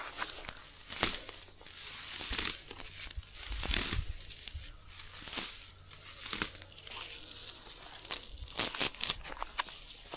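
Dry grass being pulled up and torn by hand, with irregular rustling and crackling of the brittle stalks.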